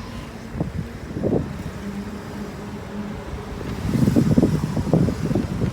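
Car running at low speed, a steady low hum heard from inside the cabin, with a few knocks and a louder stretch of rumble or handling noise near the end.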